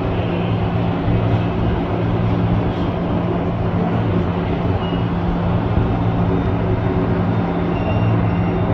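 Scale RC construction machines running: a steady, loud diesel-like engine rumble with a constant low hum and a pulsing low throb.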